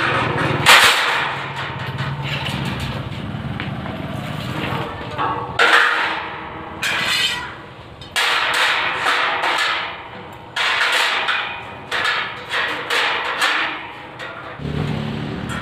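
Stick (arc) welder tack-welding a steel sheet into a steel gate frame: a series of crackling bursts from about five seconds in, each starting suddenly and lasting up to a second or so. Before them there is a steady low hum and a sharp metallic clank about a second in.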